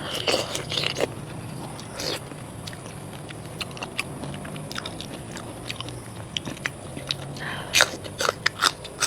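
Biting and chewing raw marinated seafood close to the microphone: a string of short, wet, crunchy clicks, with a louder cluster near the end.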